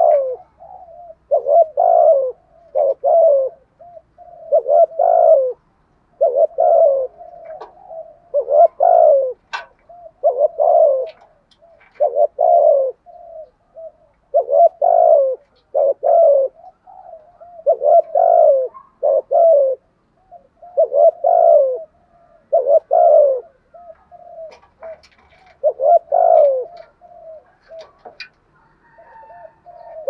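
Male spotted dove giving its rapid, repeated challenge coo ('thúc gù'): short cooing phrases about every one and a half to two seconds, with soft low notes between. This call provokes rival wild doves into coming close.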